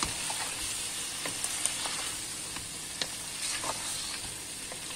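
Chicken, potatoes and yogurt masala sizzling steadily in hot oil in a pan while being stirred with a wooden spoon, with scattered light clicks. It is the bhuna stage, with the masala being fried after the yogurt goes in.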